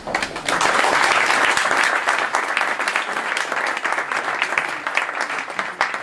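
Audience applauding: dense clapping that starts abruptly, is loudest in the first couple of seconds and slowly thins out toward the end.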